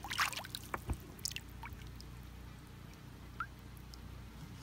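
Water dripping and splashing lightly onto a river's surface: a quick cluster of drips in the first second and a half, then a single drip a few seconds later. A steady low hum runs underneath.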